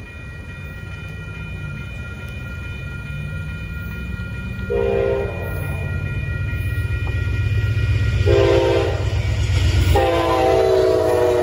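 Amtrak Texas Eagle locomotive approaching a grade crossing and sounding its horn three times: a short blast about five seconds in, then two longer ones near the end, while the engine's low rumble grows louder. A railroad crossing bell rings steadily underneath.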